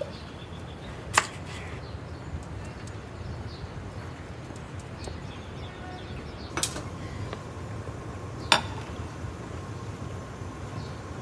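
Three sharp clicks over steady low background noise, among them a hand-held spark lighter being clicked at a gas stove burner.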